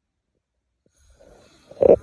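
A sleeping person snoring. After a silent pause, a breath builds into a loud, rattling snore near the end.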